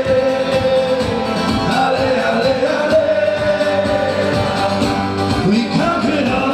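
A song playing, with a sung vocal line holding long notes over a full instrumental backing.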